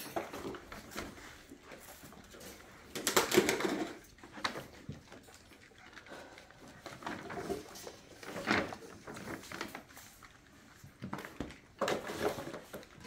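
Young puppies giving a few short whimpers and yips, the loudest about three seconds in, amid light scuffling.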